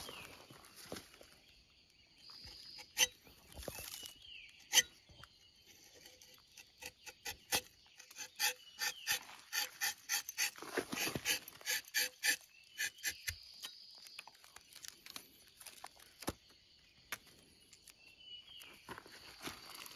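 Rubber-tapping knife shaving a thin strip of bark from a rubber tree's tapping panel: a run of short, crisp scraping clicks, densest in the middle.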